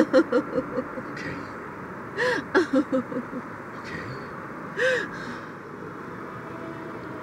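A woman crying: a run of quick catching sobs at the start and another about two seconds in, then a longer sobbing gasp about five seconds in.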